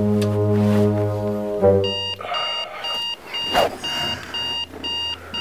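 A low held note for about the first two seconds, then a digital alarm clock beeping in a steady rhythm, a high beep about twice a second.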